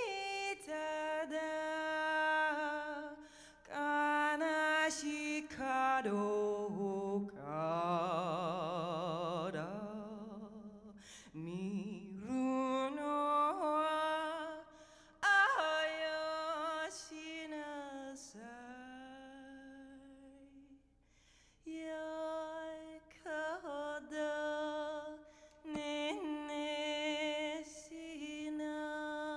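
A woman singing a cappella into a handheld microphone, a slow, lullaby-like song in phrases of long held notes, with a strongly wavering vibrato note and several sliding pitches, broken by short pauses for breath.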